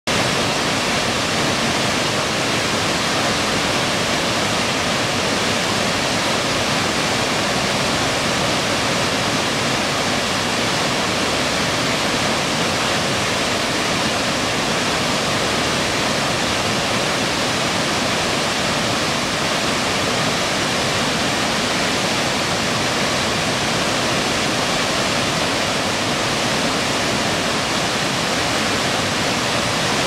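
Sekinoo Falls, a broad waterfall of several strands, pouring into its plunge pool: a loud, steady, even rush of falling water.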